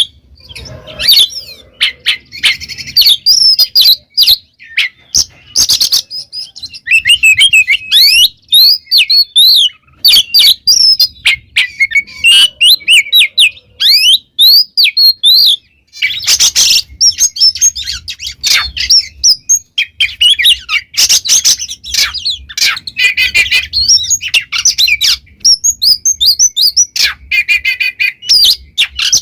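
Oriental magpie-robin (kacer) singing loudly and without pause: a fast, varied run of whistled notes, mixed with sharp clicks and short harsh, scratchy calls.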